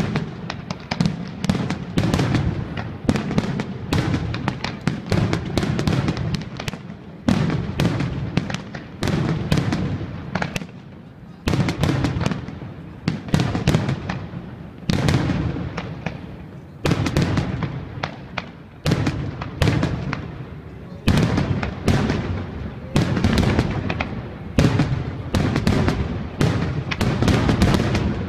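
Fireworks display: a dense, unbroken barrage of sharp bangs, several a second, with a low rumble between them.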